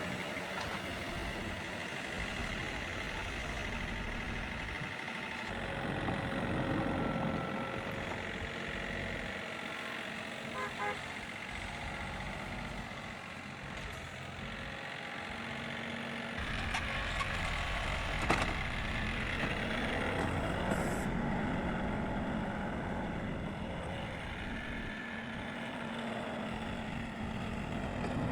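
Old John Deere tractor engine running steadily, getting a little louder twice as it works.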